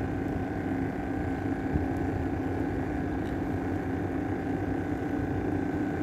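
A motor running steadily at one constant pitch, a continuous drone over a low rumble.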